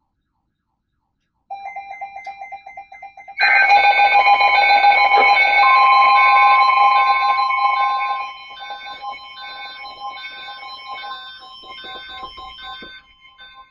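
Weather radio alert tones announcing a special marine warning. After a short silence, rapid electronic beeping starts. About two seconds later a much louder mix of steady and repeating alert tones comes in, with one long steady high tone that carries on, quieter, until near the end.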